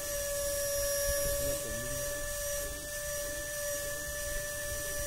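Steady high-pitched electric whine from a scale RC crawler's electric motor and speed controller as it crawls slowly through a sandy hole.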